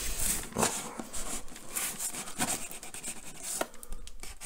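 Knife blade slitting the packing tape along a cardboard box's seam: a series of short, scratchy scraping strokes against the tape and cardboard.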